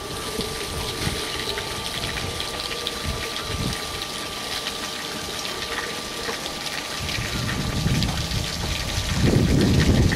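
Wind buffeting the camera microphone outdoors: a rushing noise with irregular low rumbles that grow strongest near the end, over a faint steady high tone.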